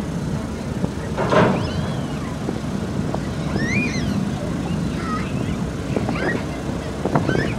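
Low, steady engine rumble of vehicles driving off a car ferry's ramp, with a short burst of noise about a second in. Gulls call several times over it in short, gliding high cries.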